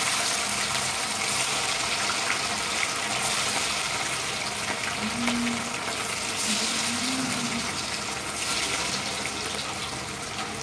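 Pakoras deep-frying in hot oil in a kadai: a steady crackling sizzle that swells again each time fresh spoonfuls of batter are dropped in.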